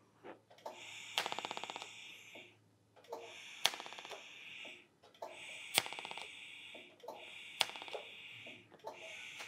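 TIG welding arc on thin 304 stainless sheet, struck and stopped about five times for short tack welds. Each arc is a hiss and buzz lasting a second or so, most with one sharp crack in it, over a faint steady low hum.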